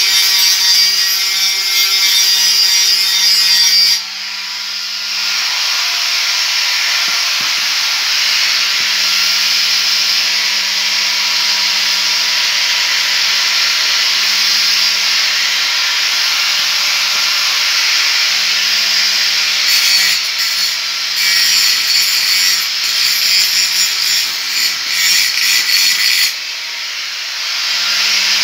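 Electric angle grinder with a cutting disc running against sheet steel: a steady motor whine under a harsh, hissing grind. The grinding sound drops suddenly about four seconds in and again near the end, and is uneven for a few seconds before that second drop.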